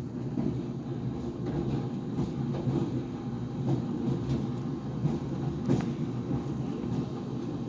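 GE Profile Harmony clothes dryer running, its drum tumbling with a steady low rumble and irregular knocks, the loudest about six seconds in: the banging noise whose cause the owner has not found.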